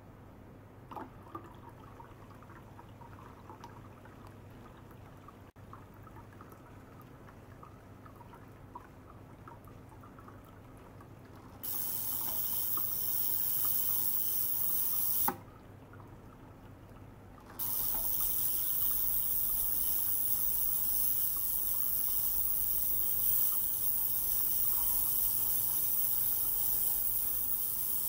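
Ultrasonic cleaner bath holding a glass jar of water: faint water circulation from a small pump with a few light clicks, then about 12 s in the cleaner switches on with a loud, steady hiss of cavitating water. It cuts off with a click about 15 s in and switches back on about 18 s in.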